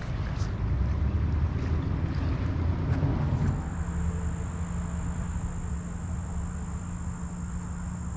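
The West Branch Delaware River running high and fast, a rushing water sound with wind on the microphone. About three and a half seconds in it cuts to a steady high-pitched insect drone over a quieter background.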